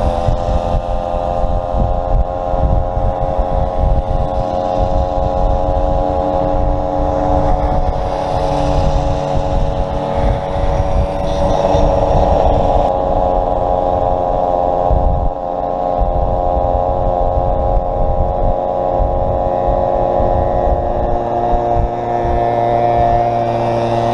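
Small two-stroke moped engine running at a steady cruising speed, with wind buffeting the microphone.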